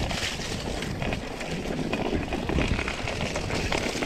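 Full-suspension mountain bike (Orbea Occam TR M30) rolling down a dry dirt singletrack. Its tyres crunch over dirt and roots, and the bike gives a continuous rattle of small knocks over a steady low rumble.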